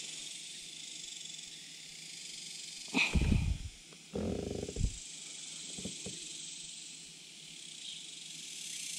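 Short rustling and knocking handling sounds, about three, four and six seconds in, as a swallowed hook is worked out of a bass's throat by hand. A steady high hiss runs underneath.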